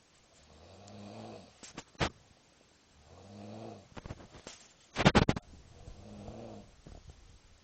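A drunk young man snoring heavily in his sleep, three rattling snores about two and a half seconds apart. A sharp click about two seconds in and a short, louder run of knocks around five seconds cut across the snoring.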